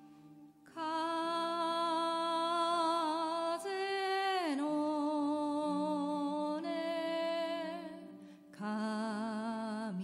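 A woman singing long, held notes with vibrato, one of them sliding down in pitch about four seconds in, over a soft sustained backing. She breaks off briefly near the end and comes back in.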